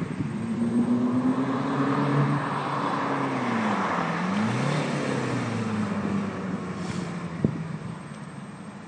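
Nissan Almera 2.2 dCi turbodiesel with a custom Magnaflow exhaust driving past under acceleration. The engine note rises, dips and climbs again about four seconds in, then fades as the car moves away. There is a single sharp tap near the end.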